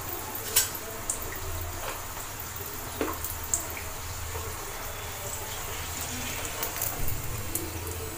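Hot oil sizzling steadily around a chicken kozhiyada deep-frying in a kadai, with a few light clicks of a perforated metal skimmer touching the pan as the pastry is turned and lifted out.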